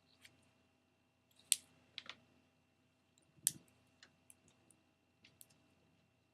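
Sticky clear slime being squeezed and pulled in the hands, giving scattered sharp wet clicks and pops, the loudest about a second and a half in and again near the middle.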